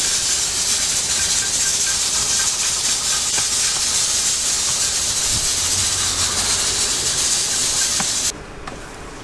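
A loud, steady hiss that cuts off suddenly about a second before the end.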